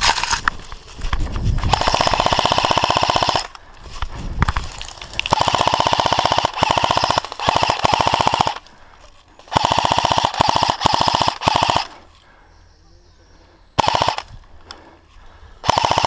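Airsoft rifle firing repeated full-auto bursts: rapid, even clicking runs, some lasting close to two seconds, with short pauses between them and shorter bursts near the end.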